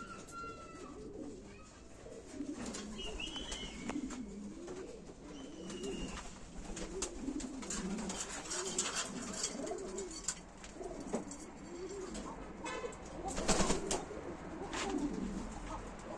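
Domestic pigeons cooing, several at once, in continuous low overlapping coos. Scattered sharp clicks and taps and a few brief high squeaks come through between them.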